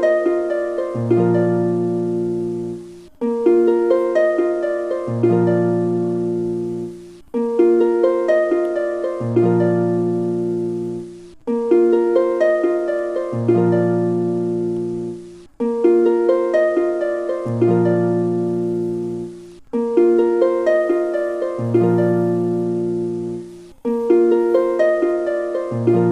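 Background music: a short harp-like plucked-string phrase looping about every four seconds, each repeat with a low bass note entering about a second in.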